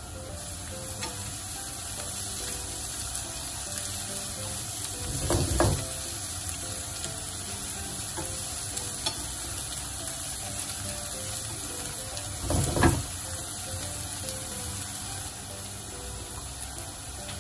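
Chopped garlic, spring onion and dried chilli flakes sizzling in olive oil in a nonstick frying pan, a steady frying hiss. Twice, about five seconds in and again near thirteen seconds, a louder short burst of stirring as chopsticks push the food around the pan.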